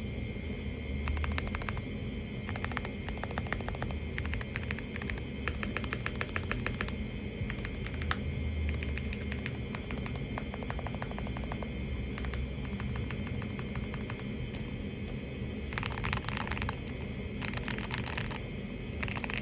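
Typing on a mechanical keyboard fitted with stock Gateron Milky Top Black Bottom linear switches: runs of quick keystrokes broken by short pauses. Two brief hissing noises come late on.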